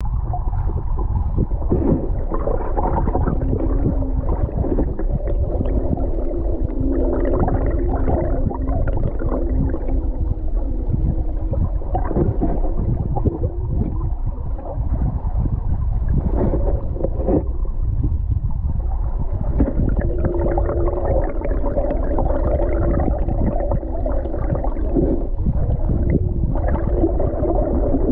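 River current heard through an underwater camera: a steady low rumble and gurgling with scattered crackles, and wavering humming tones that come and go.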